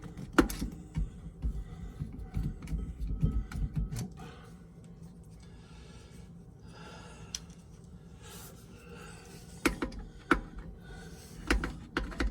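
Clinks and sharp knocks of hand tools being rummaged and handled while hunting for an Allen wrench. They come in two spells, with a quieter stretch of a few seconds in the middle.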